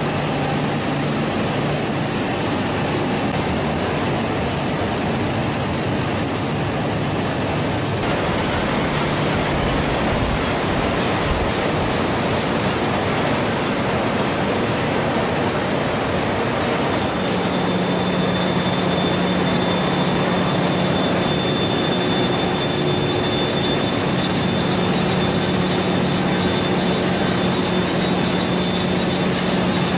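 Processing-plant machinery running steadily: a dense, even mechanical noise with a low hum. The sound changes about a quarter of the way in, and a steady high whine joins about halfway through.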